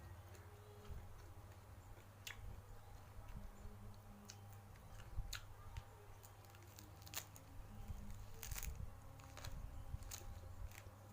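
A person chewing and eating close to the microphone: soft wet mouth sounds with scattered sharp crunchy clicks, over a low steady hum.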